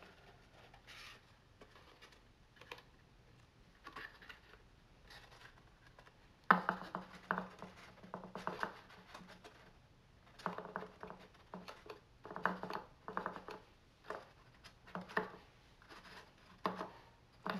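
Heavy 100-pound cardstock being handled, bent and pressed together on a wooden table. Faint scraping and rubbing at first, then from about six seconds in a run of louder short scratches and taps of paper rubbing on paper and wood.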